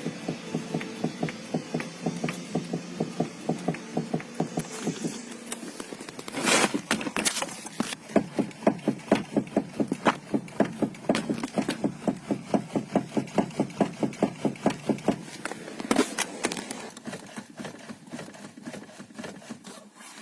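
Rapid, regular knocking from the steering column of a Renault Kangoo 2, about three to four knocks a second, as the steering is rocked back and forth. The owner traced the knock to the column's clamp bolt, tightened with its wedge out of its groove. A steady hum runs under the knocks and stops partway through.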